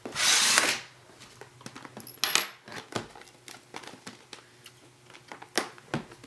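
Hands opening a toy sonic screwdriver's packaging: a brief loud rasp near the start, then scattered light clicks and taps of hard plastic being handled.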